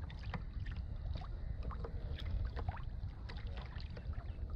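Water lapping and splashing against a fishing kayak's hull, with many small irregular plinks and a steady low wind rumble on the microphone.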